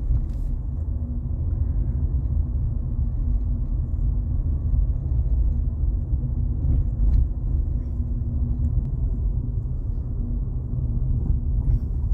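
Car driving slowly: a steady low rumble of engine and road noise.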